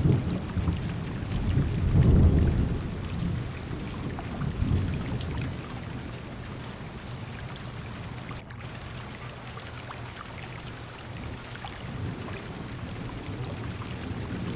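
Heavy rain pattering steadily on a car window and roof, with low rolls of thunder swelling a few times in the first five seconds before easing off.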